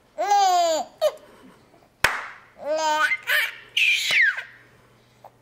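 Four-month-old baby laughing in three squealing bursts, the last one sliding down in pitch, with a sharp hand clap about two seconds in.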